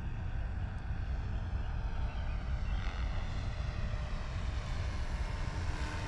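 Small helicopter flying low, its engine and rotor making a steady, rough low rumble.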